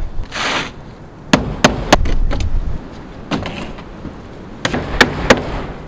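Claw hammer driving 1-inch galvanized roofing nails through asphalt shingle into a small wooden roof. There are three quick, sharp strikes about a second in, a couple of lighter knocks, and three more sharp strikes near the end.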